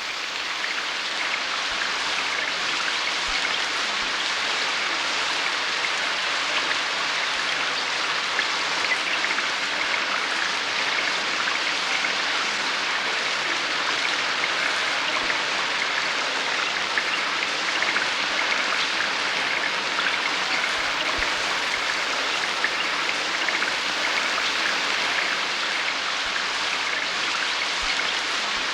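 Rain sound effect: steady rainfall, an even hiss with fine drop patter.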